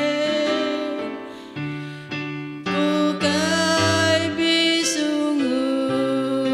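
Two women singing a Christian hymn in the Bidayuh language over instrumental accompaniment. The voices fall away for a moment about a second in, then come back strongly just before three seconds.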